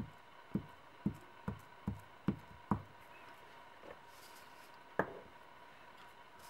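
Glue stick dabbed against paper on a cutting mat: seven soft knocks, about two a second, then a sharper knock about five seconds in.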